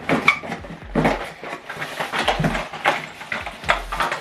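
Unboxing handling noise: packaging and accessories being rustled and knocked about, with irregular clicks, crinkles and a few sharper knocks.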